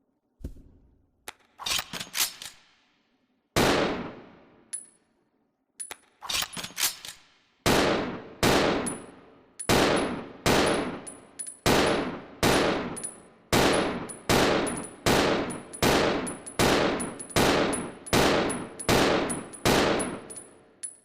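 Handgun gunshot sound effect fired over and over, each shot with a decaying tail. The shots are irregular for the first seven seconds, then come in a steady string a bit under a second apart. A short high metallic ping follows many of them.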